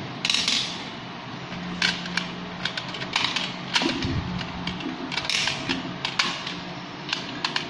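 Glass marbles clicking against one another and against the aquarium's glass floor as a hand gathers them: an irregular run of sharp clicks.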